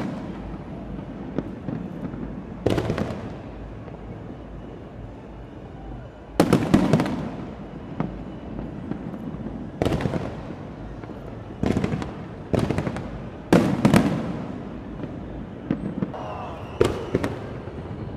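Aerial fireworks bursting: a string of sudden booms at irregular intervals, some coming in quick pairs, each trailing off in an echo.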